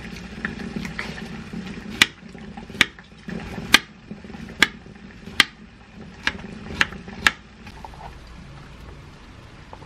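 Kitchen knife cutting a small peach into little pieces on a wooden board: the blade knocks against the board about eight times, a sharp tap every half second to a second, then stops about two seconds before the end. A steady low hum runs underneath.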